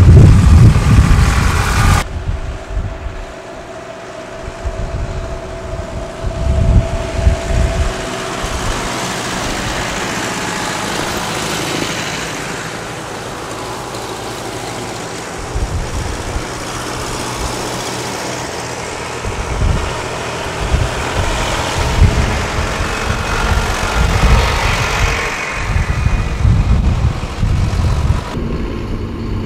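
Vintage tractor engines passing one after another along a road, a loud close pass at the start, then the sound swelling and fading several times as each tractor goes by.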